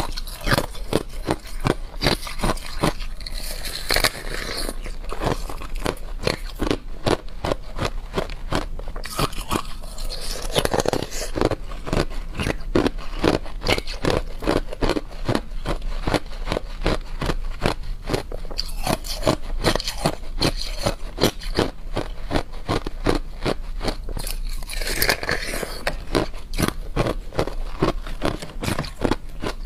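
Thin sheets of clear ice crunching as they are bitten, chewed and snapped apart by hand: a dense, unbroken run of sharp cracks, several a second.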